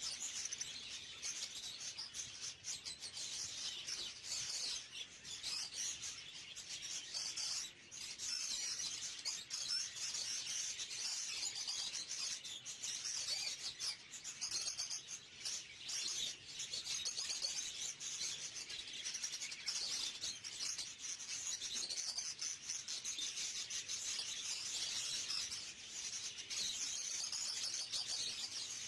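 Many caged budgerigars chattering together: a dense, unbroken twittering and chirping.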